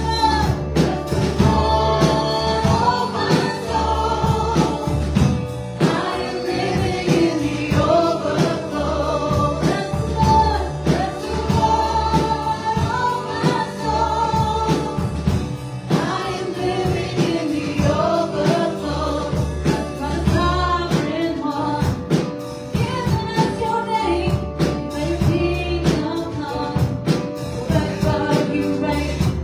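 Live gospel worship song: a woman and a man singing into microphones, accompanied by keyboard and a drum kit with cymbals.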